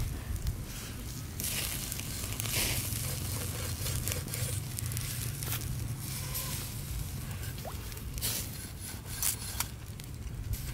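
Open wood fire crackling under a whole goose roasting on a bamboo spit, with scattered sharp pops and crackles over a steady low rumble.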